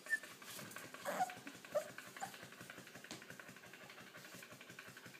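Puppies in a wire crate give a few short whimpers and yips in the first two seconds, then pant quickly and steadily.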